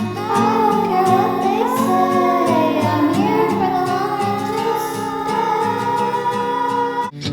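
An early song demo: a sung melody over evenly repeated accompaniment chords. Near the end the music cuts off for a moment and another snippet starts.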